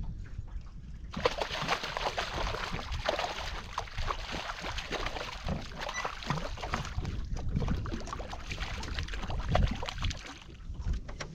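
Water sloshing and splashing against a boat's hull, over a low rumble of wind on the microphone. The splashing comes in abruptly about a second in and eases off near the end.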